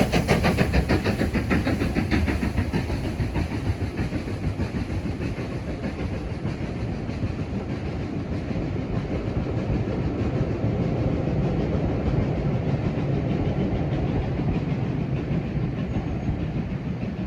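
Two-cylinder steam locomotive working a train past, its rapid exhaust beats fading over the first several seconds, then the coaches rolling by with a steady rumble and wheel clatter on the rails.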